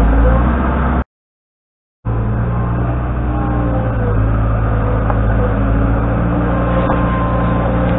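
New Holland LX665 skid steer loader running steadily as it works dirt, with a faint hydraulic whine over the engine. The sound cuts out completely for about a second near the start, then resumes.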